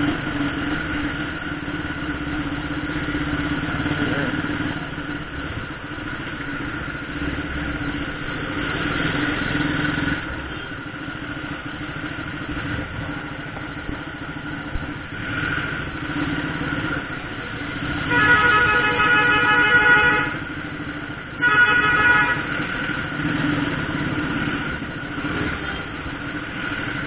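Motorcycle engine running steadily while riding slowly in traffic. A vehicle horn sounds twice about two-thirds of the way through, first for about two seconds, then for about one second.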